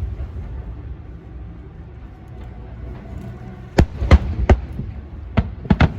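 Fireworks going off: a low rumble, then a run of sharp bangs in the second half, several in quick succession near the end.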